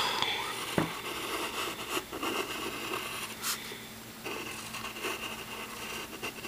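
Pencil scratching on paper in short drawing strokes, with a couple of faint clicks.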